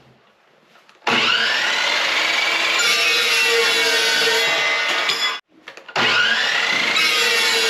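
Evolution chop saw cutting steel stock: it starts about a second in with a rising whine and runs loud for about four seconds, then cuts off abruptly; a second cut starts about six seconds in.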